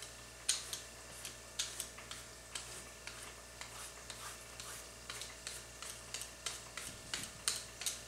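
Hand vegetable peeler scraping strips of skin off a young zucchini: quick short strokes, about two or three a second, coming faster near the end.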